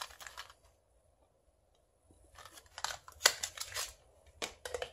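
A carbon brush packet being opened and emptied by gloved hands: the cardboard and plastic packaging crackles and rustles in short bursts. There is a brief burst at the start, a denser run of crisp crackles from about two to four seconds in, and two sharp clicks near the end.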